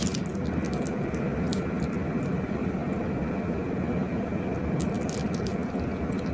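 Glossy slime being worked by hand, with small scattered clicks and crackles over a steady rumbling noise.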